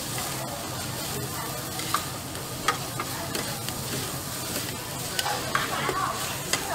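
Wide flat noodles and vegetables sizzling on a flat-top griddle while metal spatulas toss and scrape them, with several sharp clinks of spatula on the hot plate over a steady frying hiss.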